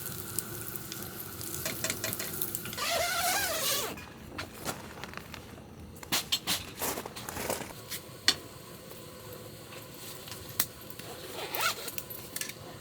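Food sizzling in a hot pan for about four seconds. The sizzle then dies down, and a utensil clinks and scrapes against the pan and dishes in scattered sharp knocks.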